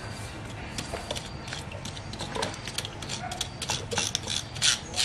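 Repeated short, irregular scraping strokes of a flat metal spatula and brush drawn along the threaded steel screw of a homemade bench vise, spreading a coating into the thread; the strokes come faster and louder in the second half.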